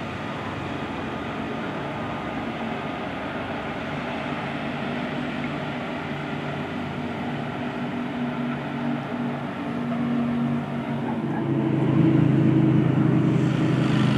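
Pilatus PC-7 turboprop aircraft, their Pratt & Whitney PT6A engines and propellers making a steady drone overhead. About twelve seconds in it swells louder, with a strong low propeller tone, as a plane comes closer.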